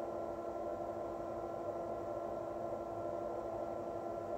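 Steady electrical hum made of several constant tones over a faint hiss, with no handling sounds or clicks.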